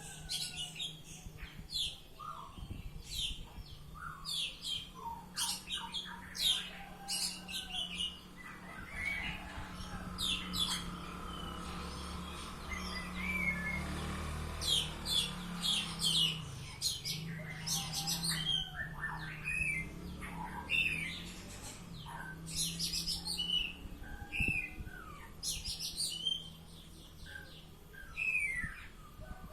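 Oriental magpie-robin (kacer) singing nonstop: a continuous run of quick, high chirps and whistles. A low steady hum runs beneath, swelling for a few seconds in the middle.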